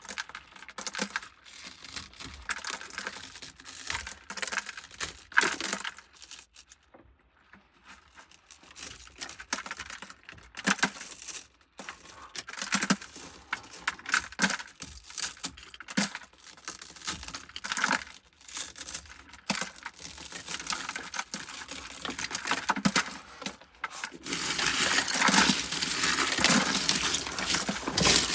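Small pieces of shattered cab-window glass clinking and rattling as they are handled and poured out, in scattered irregular clicks with pauses, turning into a steadier, louder rattle about 24 seconds in.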